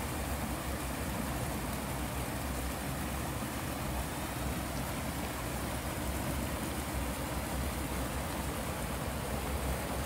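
Creek water pouring over a small stone weir into a foamy pool: a steady rushing splash.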